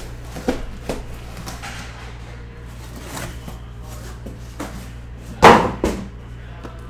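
Shrink-wrapped cardboard trading-card boxes being handled on a table: a few light knocks, then a sharp thump about five and a half seconds in, followed by a smaller one as boxes are set down.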